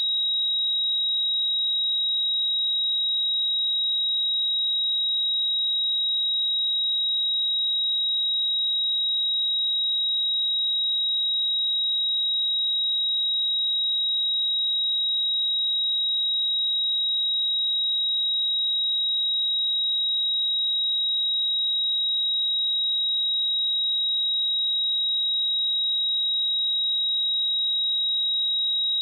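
Steady pure sine-wave test tone at 3816 Hz, a single high-pitched note held at constant loudness.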